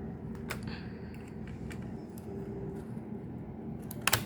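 Faint scattered clicks of a screwdriver and small parts being handled on a laptop's heatsink, with a sharper double click near the end, over a steady low hum.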